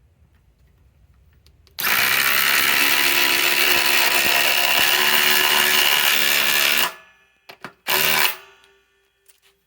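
Cordless impact driver hammering a large lag screw into wood, running for about five seconds before stopping. Then two very short blips and one brief final burst as the screw is seated.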